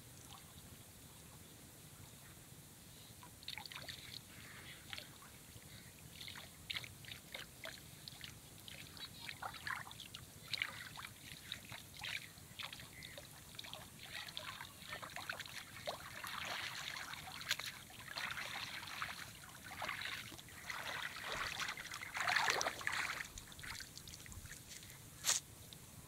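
Water splashing, trickling and dripping as a cast net is hauled in and lifted out of shallow river water; the splashes come irregularly and grow busier and louder in the second half, with one sharp knock near the end.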